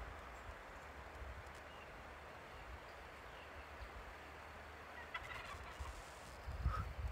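A male wild turkey gobbling faintly: one quick rattling string of notes about five seconds in. A few low thumps come near the end.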